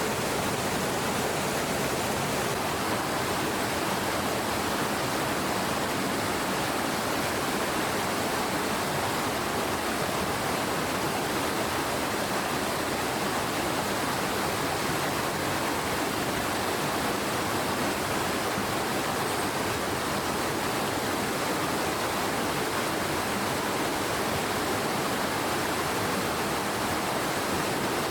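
Stream water rushing steadily, an even unbroken roar.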